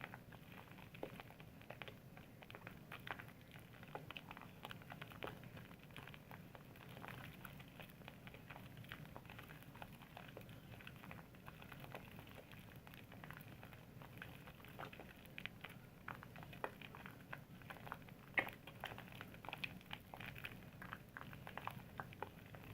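Soap being worked into a lather, a faint, continuous run of irregular wet squishes and little crackles from the foam.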